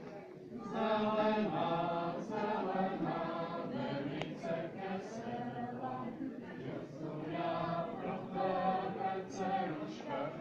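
A group of voices singing a folk song together, in held phrases with short breaks between them.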